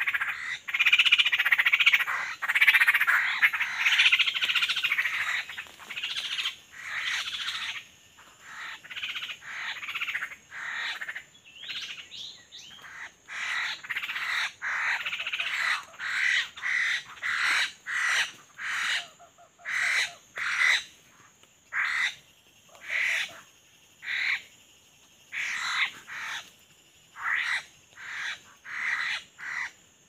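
Repeated harsh animal calls in a bamboo forest. For the first several seconds the calls come thick and overlapping; after that they settle into short calls about once a second.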